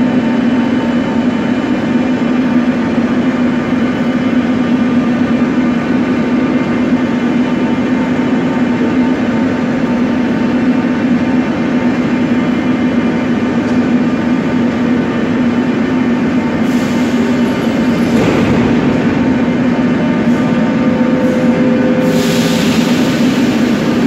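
Moscow metro 81-717.5/714.5 train standing at the platform, its on-board machinery giving a steady, multi-toned electrical hum. A burst of hissing comes about 17 seconds in, and another starts near the end.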